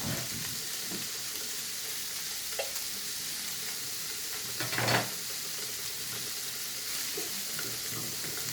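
Broccoli florets and yellow squash sizzling in hot oil with garlic in a frying pan, a steady hiss. There is a light knock about two and a half seconds in, and a brief louder rush of sizzle and clatter a little before halfway.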